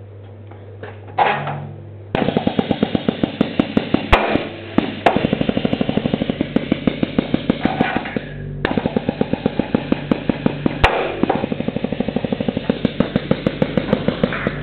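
Handheld riveting hammer pounding rivets through a steel bracket into a chassis rail: a rapid, steady stream of metallic hammer blows in two long runs with a short break in between.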